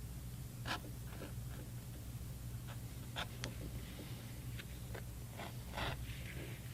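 A No. 2 Barry King leather edger shaving the edge of a leather sheath in short, scratchy strokes, over a steady low hum.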